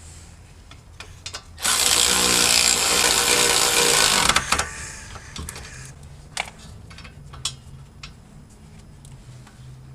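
A handheld power tool runs for about two and a half seconds, driving in a wheel hub's mounting bolts, followed by a few scattered metal tool clicks.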